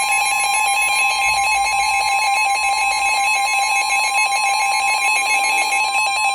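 Emergency Alert System two-tone attention signal: two steady tones sounding together, loud and unbroken, the signal that an emergency alert message is about to be broadcast.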